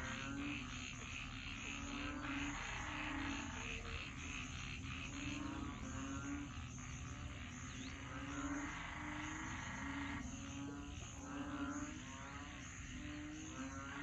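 A chorus of frogs calling, with short low croaks repeating about once or twice a second and higher trilling and chirping calls layered above.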